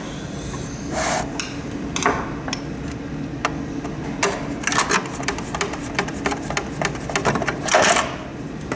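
Small plastic humidifier parts being handled and pulled apart: scattered clicks at first, then a dense run of rapid clicking and rattling from about halfway in, over a steady background hum.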